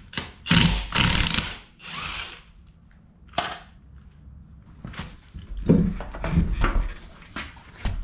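Tool noise and metal clanks from taking a rear wheel off a jacked-up truck: a burst of rasping tool noise in the first two seconds, a single sharp metallic clank with a short ring about three and a half seconds in, then a run of heavier knocks near the end.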